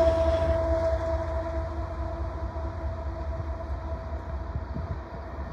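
Canadian Pacific AC4400CWM diesel-electric locomotive, the train's rear distributed-power unit, moving away after passing: a steady whine over a low rumble, fading steadily as it recedes.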